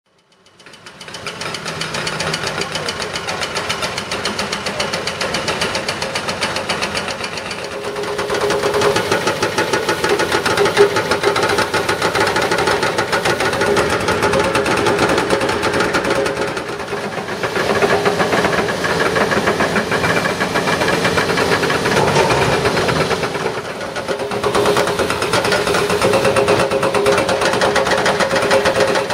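Two excavator-mounted hydraulic breakers pounding on concrete pavement, a rapid, continuous hammering that eases off briefly a few times, breaking up the road surface.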